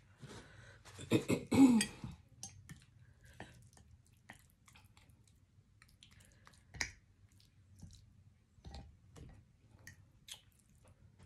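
Close-up eating sounds: wet chewing and mouth noises, with scattered short clicks of a fork in a ceramic bowl, one ringing clink about seven seconds in. The loudest moment is a short vocal throat sound from the eater about a second in.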